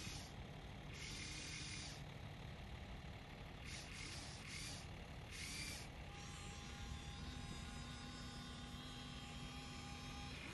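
A steady background hiss. About six seconds in, the faint, steady whine of a small electric motor sets in, from the Huina 1593 RC excavator.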